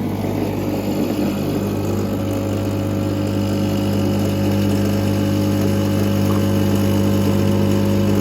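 Rancilio Silvia espresso machine's vibratory pump buzzing steadily as it pulls an espresso shot. The buzz grows slightly louder over the seconds.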